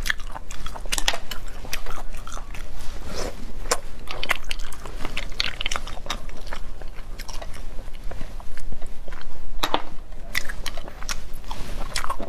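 Close-miked eating of sea snails in chili oil: wet chewing and mouth smacks, with many short, sharp clicks throughout.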